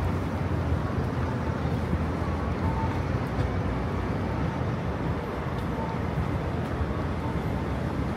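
Steady busy city-street ambience, mostly a low rumble of traffic.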